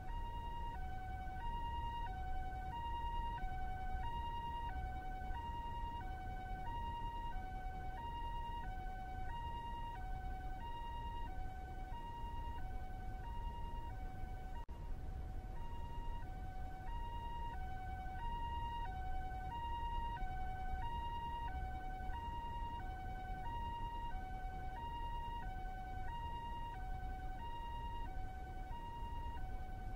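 Ambulance siren sounding a two-tone high-low call, about one high-low pair a second, repeating steadily over a low rumble.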